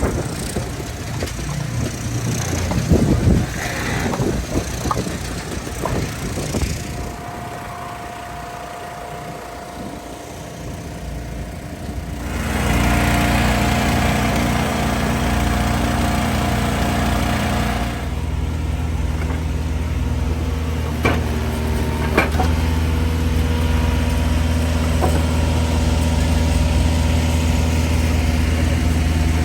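Engines of log splitters running steadily, with knocks and cracks of wood being split. The engine sound gets louder and stays steady from about twelve seconds in, with a few sharp cracks a little after twenty seconds.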